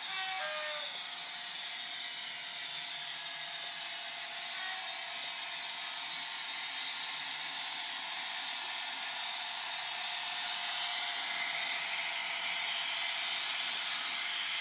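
Bachmann OO-gauge Class 57 model locomotive running with a Howes DCC sound decoder playing a diesel engine sound through its small speaker, together with the whirr of the model's motor and wheels on the track. The sound is steady and thin, with no deep bass, and swells a little in the middle.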